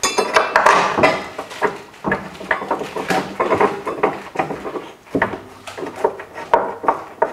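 Irregular metallic clinks, knocks and scrapes as a steel tow-bar crossmember is nudged into position under the car and its mounting bolt is started by hand in its painted threads.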